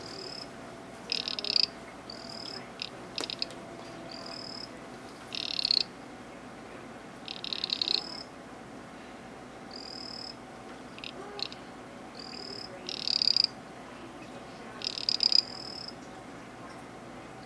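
Small poison dart frog calling: about a dozen short, high-pitched buzzing trills, some rattling and some smoother, at irregular gaps of one to two seconds, loudest in the second half. This is typical of a male calling to a female at a tadpole's bromeliad pool during tadpole feeding, when she lays an unfertilised egg as food.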